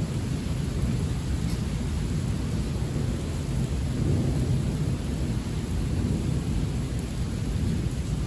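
Thunder rumbling deeply and continuously over steady heavy rain, swelling slightly about four seconds in.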